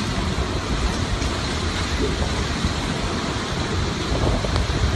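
Hurricane wind and heavy driving rain: a steady, loud rushing noise with wind buffeting the microphone.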